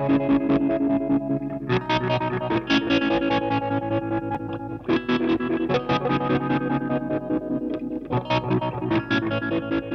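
Electric guitar picking quick runs of notes through a Prismatic Reverb pedal, a clone of the Deadastronaut Flying Saucer Reverb. Each note rings on and blends into the next.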